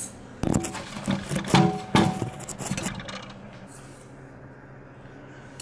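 Handling noises of toilet parts being assembled: a quick run of knocks and scrapes of the porcelain tank and rubber tank-to-bowl gasket in the first half, one knock leaving a short ring, then quieter handling over a faint steady hum.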